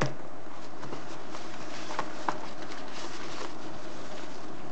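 Hands handling a football-boot box: tissue paper and packaging crinkling, with a few sharp knocks and clicks, over a steady background hiss.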